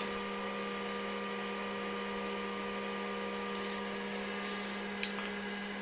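Apple Lisa computer and its external Apple ProFile hard disk running: a steady electrical hum with a motor whir.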